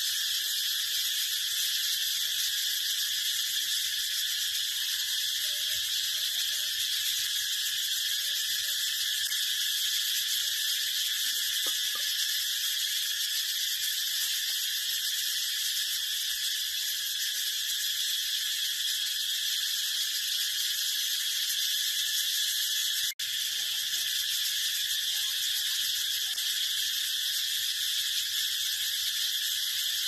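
Cicada song: a high, steady, unbroken buzz, with a momentary break a little over two-thirds of the way through.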